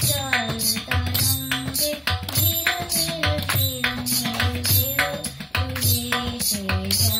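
A girl singing a Bengali song to harmonium, with tabla keeping a steady rhythm of sharp treble strokes and deep bass strokes from the bayan.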